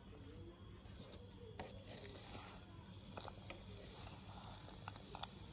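Faint stirring of pork cracklings, fried shallots and garlic in a wok with a wooden spatula over low heat: scattered light clicks and scrapes over a low steady hum.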